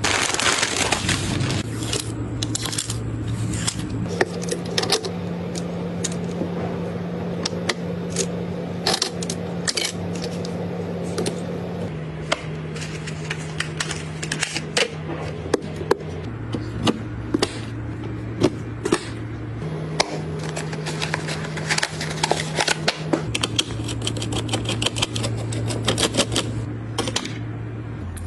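Quick clicks and plastic-and-metal clatter of computer parts being handled and fitted together, over background music with a low held bass note that changes every few seconds.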